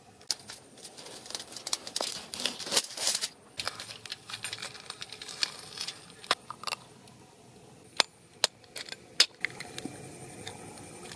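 Leaves rustling and stems snapping as a green bell pepper is pulled from the plant, then a few sharp, crisp clicks as a knife cuts into the pepper and an eggshell is cracked, the loudest crack about a second before the end.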